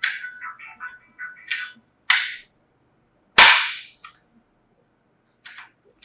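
Short electronic beeping tones, then two sharp bangs about a second apart, the second louder and trailing off, followed by a few light clicks.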